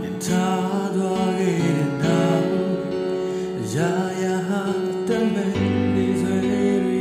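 A slow Burmese pop song: a male voice singing over a backing track programmed on a phone in FL Studio Mobile.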